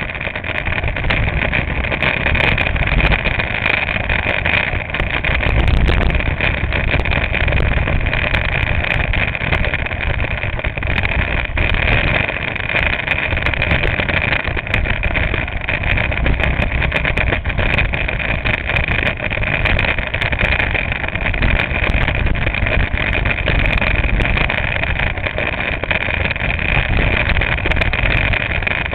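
Go-kart engine running on the move through a lap, heard from a camera mounted on the kart's nose, as a steady loud noisy drone.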